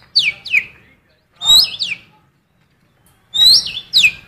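A caged cucak keling biru songbird repeating female oriental magpie-robin (kacer) calls that it has learned. Three short loud phrases, each a rising whistle that breaks into one or two quick falling notes, about every two seconds.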